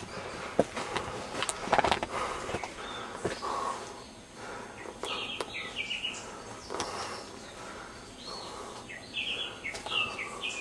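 Footsteps and scuffs on a rocky hill trail, with short bird chirps about halfway through and again near the end.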